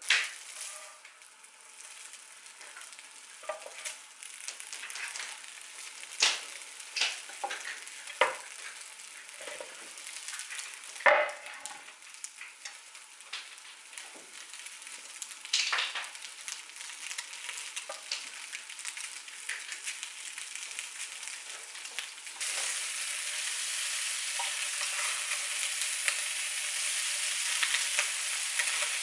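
Food sizzling in a frying pan while a utensil stirs it, with scattered clicks and knocks against the pan. The sizzle gets louder about two-thirds of the way through.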